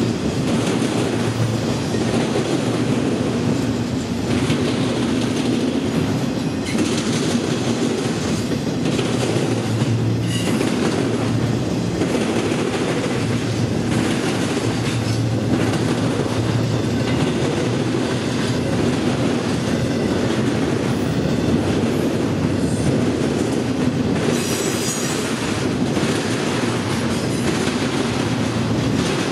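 Intermodal freight train's cars rolling steadily past, with a continuous rumble and wheels clicking over rail joints. A brief high squeal comes about 25 seconds in.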